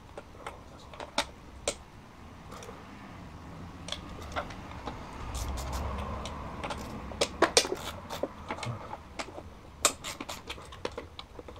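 Irregular metal clicks and taps of a 10 mm wrench working the bolts on a car's electronic throttle body, with a quick run of clicks about seven seconds in and some rustling handling noise around the middle.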